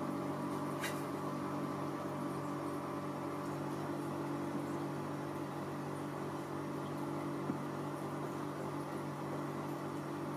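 Steady hum of a household appliance running, with one faint click about a second in.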